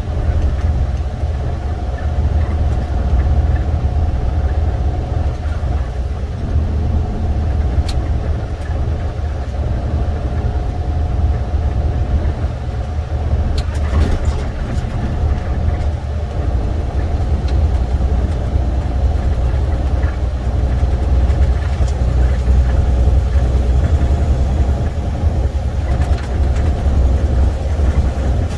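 International semi truck's MaxxForce 13 diesel engine running at cruise, heard from inside the cab as a steady low rumble with road noise.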